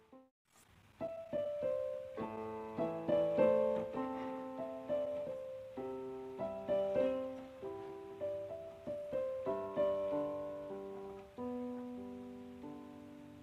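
Background piano music: single notes and chords struck and left to fade. It breaks off briefly at the start and picks up again about a second in.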